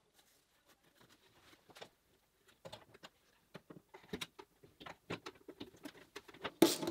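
Sheet-aluminium electronics enclosure being handled and fitted into a metal machine frame: scattered light clicks and knocks of metal on metal, more frequent and louder toward the end.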